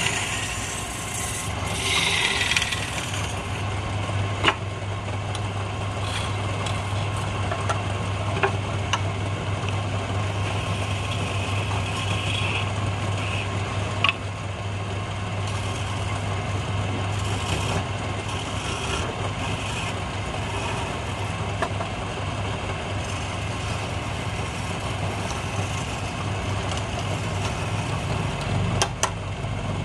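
Wood lathe motor humming steadily while a hand-held turning chisel cuts into the spinning wood, a scraping hiss of shavings that swells and fades as the tool is worked. A few sharp clicks stand out, about four seconds in, again mid-way, and near the end.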